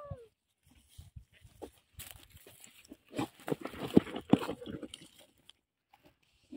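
A dog gives a short falling whine at the very start, then digs, with scratching and rustling in dry soil and stubble. It comes in quick irregular strokes, loudest around the middle.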